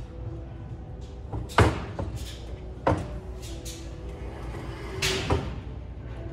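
Shop background noise: several sharp knocks and bangs, around one and a half, three and five seconds in, over a low steady hum.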